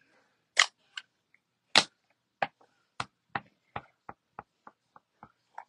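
A series of light, sharp taps, a dozen or so, coming quicker and fainter toward the end: a clear stamp on an acrylic block and a Gray Granite Stampin' Pad being tapped together to ink the stamp.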